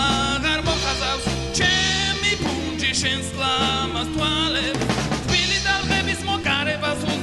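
Rock song played by a band: a man sings the lead vocal over drums and instruments.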